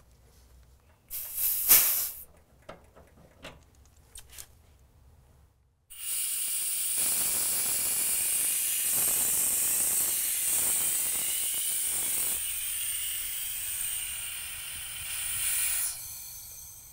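Pressurised nitrogen hissing out of a mini-split's refrigerant line set for about ten seconds, fading toward the end, as the pressure-test charge is vented. Before it, a sharp short hiss and a few clicks as the gauge hoses are uncoupled from the service-port fittings.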